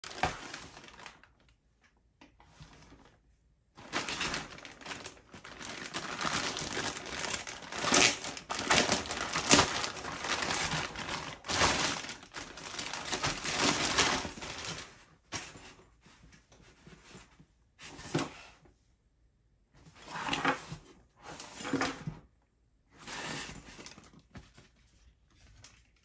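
Clear plastic packaging crinkling and rustling as a camera bag is handled and pulled out of it. Dense rustle for about ten seconds, then shorter bursts of handling with pauses between them.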